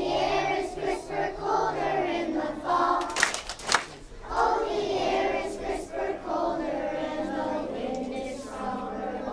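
A crowd of children and adults singing together, with a few sharp claps about three seconds in.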